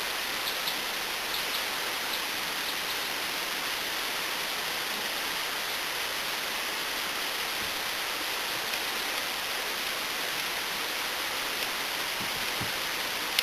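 Steady, even hiss of background noise, with a few faint light clicks near the start and again near the end.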